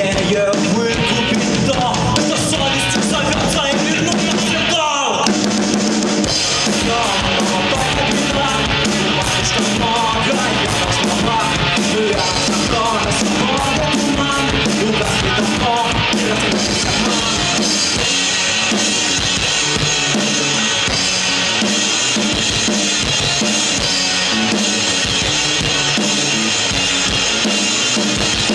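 Live rock band playing an instrumental passage without vocals: electric guitars, bass guitar and a drum kit, with a quick falling sweep about five seconds in.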